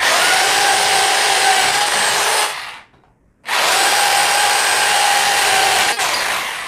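Rotary hammer drill in drill-only (non-hammer) mode, boring a 10 mm wood bit into 19 mm plywood. It makes a steady motor whine in two runs: the first lasts about two and a half seconds, stops briefly, then starts again about three and a half seconds in and runs until near the end.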